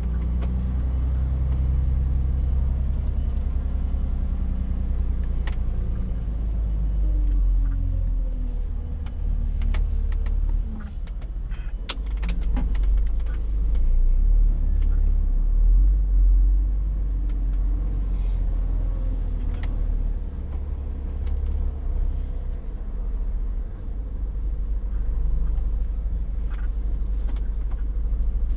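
Scania S460's 13-litre six-cylinder diesel engine running at low revs, heard from inside the cab, its pitch rising and falling as the truck manoeuvres slowly. Scattered short clicks and knocks over the engine rumble.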